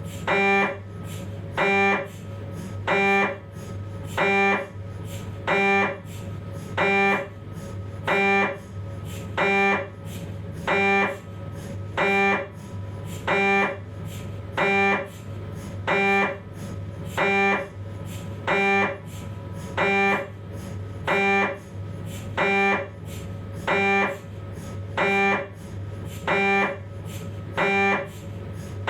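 Philips 1.5 tesla MRI scanner's gradient coils running a 3D T2-weighted spine sequence: a short buzzing tone pulses evenly about every 1.4 seconds over a steady low hum.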